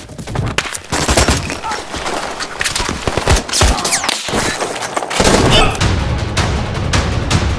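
Staged gunfire from a TV action scene: dense volleys of rifle shots in quick succession, with a low steady rumble joining about five seconds in.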